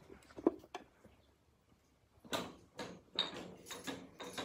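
Australian Cattle Dog puppies wrestling close to the microphone: a couple of light clicks, then from about two seconds in irregular bursts of scuffling and rubbing as their bodies and paws tussle on a blanket.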